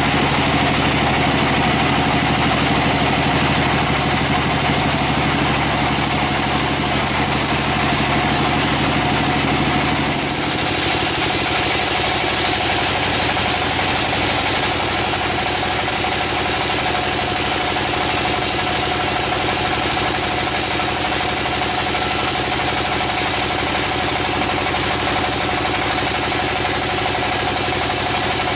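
Vertical band sawmill running and cutting a log: a steady machine drone with a steady whine over it. The sound changes abruptly about ten seconds in, with less low rumble and a higher whine afterwards.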